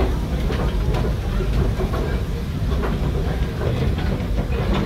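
Steam train running uphill, heard from the coach just behind the locomotive's tender: a steady heavy rumble of wheels on rail with irregular clicks and knocks.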